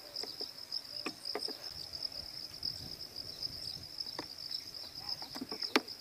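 Crickets trilling steadily in one high, even band, with scattered faint clicks and taps.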